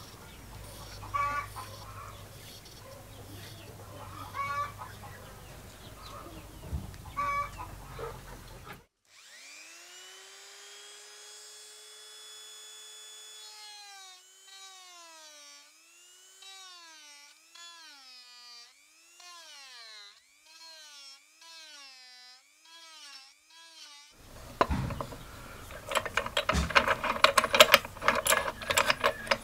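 A few faint hen clucks over low background. About nine seconds in, a handheld rotary tool with a sanding drum spins up to a steady whine, its pitch dipping over and over as the drum bears on the pine block. From about twenty-four seconds, an end mill in a drill press cuts into the wood with a loud, dense crackle.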